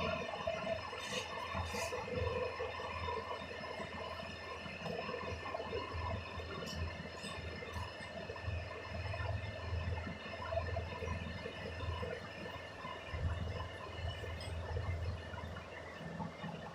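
Milk being drawn into a pail during milking, a steady liquid pouring and splashing.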